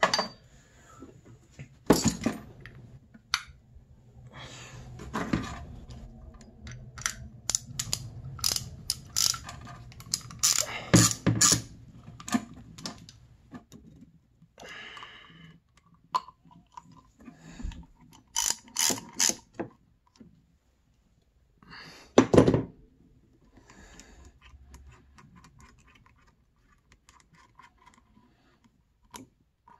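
Irregular clicks, clinks and knocks of hand tools and small metal parts being handled while a snowmobile power valve's cable fitting is worked on. The louder knocks come about 2, 11 and 22 seconds in.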